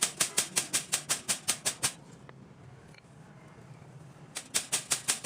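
Rapid, evenly spaced sharp clicks, about six or seven a second, stopping about two seconds in and starting again near the end.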